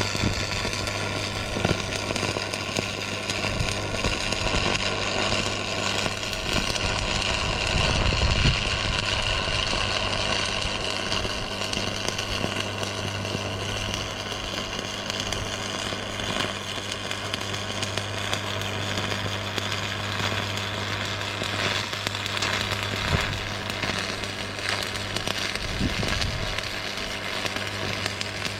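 Electric arc welder laying a continuous weld on a steel cattle feeder: a steady, dense crackling sizzle of the arc over a low, steady hum.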